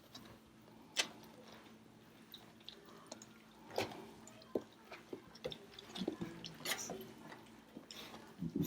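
German Shepherd puppies eating and lapping from bowls: wet smacking and chewing with scattered small clicks and knocks.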